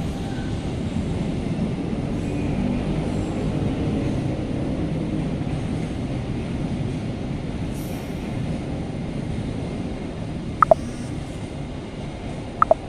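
Low, steady rumble of trains running through a station, with two short, sharp falling chirps about two seconds apart near the end.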